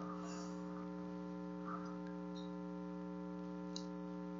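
Steady electrical mains hum, several even tones at once, with a faint click near the end.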